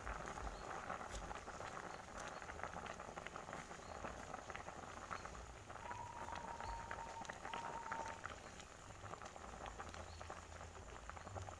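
Coconut-milk broth with chicken offal and feet boiling hard in a pot, bubbling with many small pops. About halfway through, a thin steady tone, falling slightly, sounds for about two seconds with a brief break.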